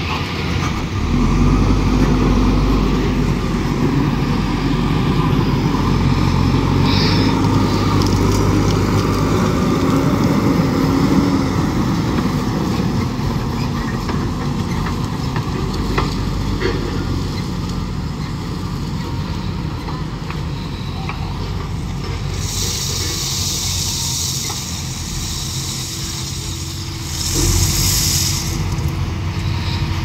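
JCB 4DX backhoe loader's diesel engine running steadily as the machine drives over gravel, with two stretches of hissing in the last third.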